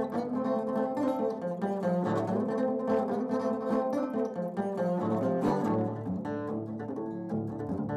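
Steel-string acoustic guitar played solo, fingerpicking a blues intro: plucked treble notes over a steady low bass line.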